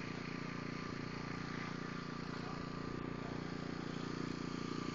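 A steady mechanical hum of an engine or motor running, with an unchanging low drone.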